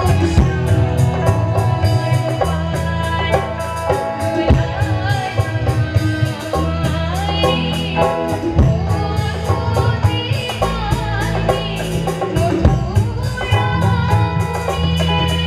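A woman singing a song into a microphone over amplified musical accompaniment, with a heavy bass line and a steady drum beat.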